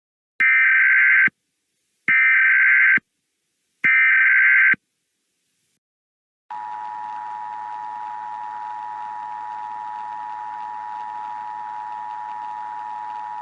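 Three EAS SAME header data bursts, each a buzzy digital burst just under a second long, spaced about a second apart. About two seconds after the last one, the two-tone EAS attention signal (853 and 960 Hz) starts and holds steady. Together they are the start of an emergency alert message.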